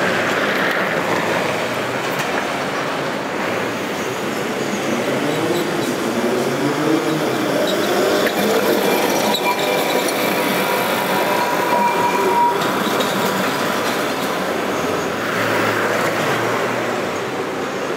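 Vintage yellow streetcars running on street rails, with the steady rumble of the cars. About halfway through, the wheels squeal on the track with a steady high tone.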